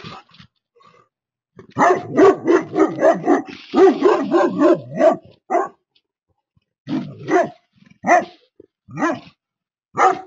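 Livestock guardian dog barking: a rapid run of deep barks, about three or four a second, then single barks about a second apart. This is alarm barking to ward off a coyote.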